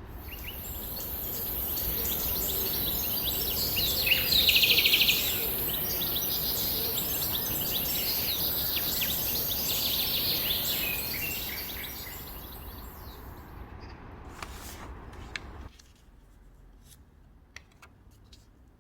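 Songbirds chirping and singing over a steady hiss of outdoor background noise, fading in and then fading out; about four seconds in one bird gives a loud, rapid trill. After the birds fade, only a few faint clicks remain.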